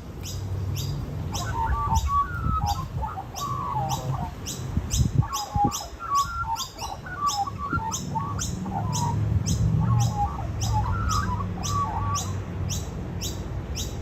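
Birds chirping: a short high chirp repeats about twice a second, with three spells of quicker warbling notes lower in pitch.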